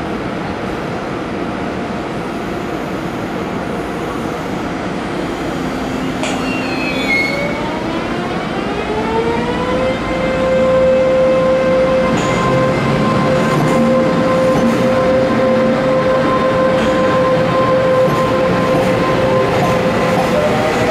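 Taiwan Railways EMU500 electric multiple unit pulling away from the platform. Its motor whine rises in pitch about eight seconds in, then holds at one steady pitch as the train gets louder and its cars roll past.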